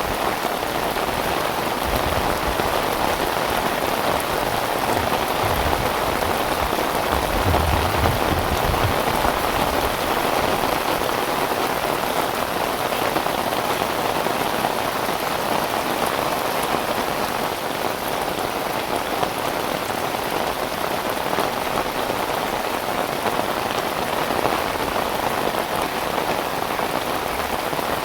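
Heavy rain falling steadily, a dense even hiss of drops, with a few brief low rumbles in the first several seconds.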